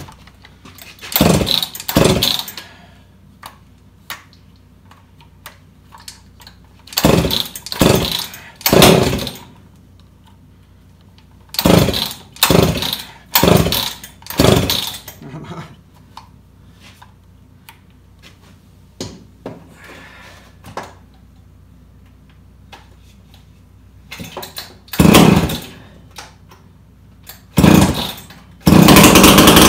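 Jonsered 625 two-stroke chainsaw being pull-started: about a dozen short pulls on the recoil starter, coming in groups with pauses between. Near the end it catches and keeps running loudly.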